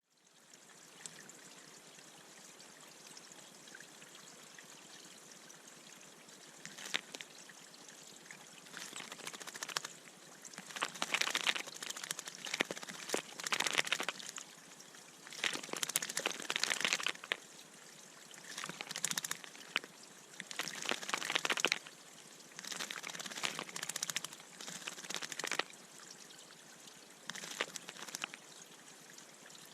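A bird bathing in a bird bath: after a steady faint trickle, water splashes in repeated short bursts, each about a second long, as the bird flutters and dips in the water.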